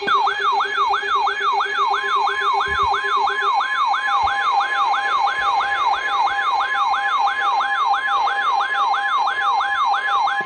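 Electronic emergency alert tone: a rapid falling siren-like sweep repeating about three times a second over steady tones, sounding ahead of a severe thunderstorm warning broadcast.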